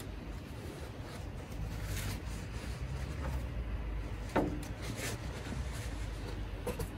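Leather welding gloves rustling and rubbing as they are pulled on, with a sharp knock about four seconds in, over a low steady rumble.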